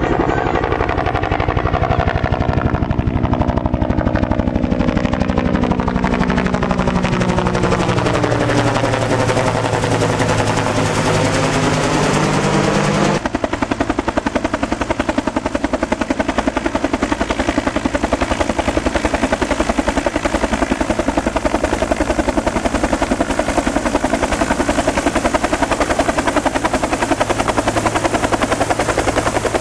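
Bell UH-1 Iroquois (Huey) helicopter running loud, its two-bladed rotor giving a rapid, rhythmic chop over the turbine. Over the first dozen seconds the tone sweeps down and back up, then about 13 seconds in it changes abruptly to a steady sound.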